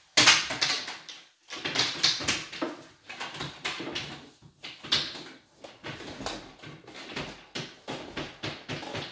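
Irregular rustling and scuffling from someone moving close to the microphone, with several sharp noisy bursts, the loudest just after the start and again around two, five and six seconds in.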